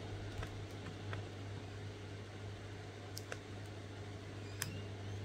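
A few faint, scattered clicks and taps from hands working at the product and its packaging, over a steady low hum.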